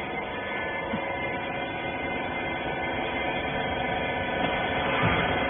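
Cloth baler press's hydraulic pump and motor running with a steady hum of several fixed tones.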